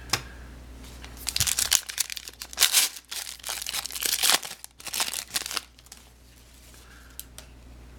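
Plastic-foil wrapper of a football trading card pack being torn open and crinkled, a run of rustles and rips lasting about four seconds, starting a second or so in.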